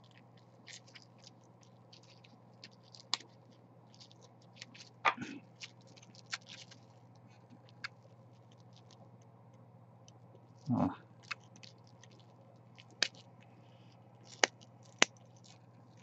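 Small clicks, scrapes and sharp snaps of a multi-tool blade picking and prying support material out of a 3D-printed plastic part, the support pieces cracking off now and then, over a low steady hum. A longer scraping rub comes about 5 s in and again about 11 s in.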